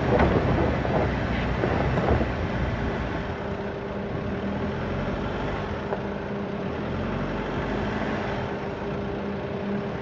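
SsangYong Rexton Sports pickup's diesel engine running steadily at low speed as it crawls over a dirt crest, with tyres on a rough gravel track. The rumble is a little louder for the first few seconds, then settles to an even hum.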